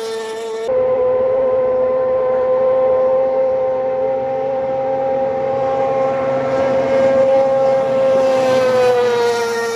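A steady held tone with overtones that sags slightly in pitch near the end.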